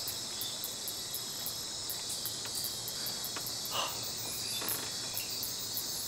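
Night-time insect chorus: crickets trilling steadily in several high layers, with an even rapid pulsing at the top. A couple of faint brief sounds come through midway.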